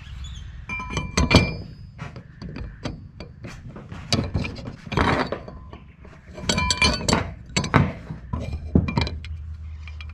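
Aluminium mounting bars and brackets clinking and knocking against each other and the corrugated metal roof as they are handled and lined up. The sound is a scattered series of metallic clinks, some with a brief ring. The loudest come about a second in and again around six to seven seconds in, over a steady low rumble.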